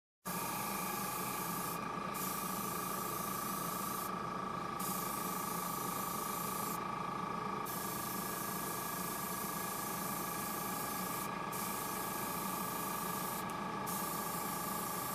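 Airbrush hissing as it sprays clear candy paint, cut off briefly about five times as the trigger is let off. A steady motor hum runs underneath.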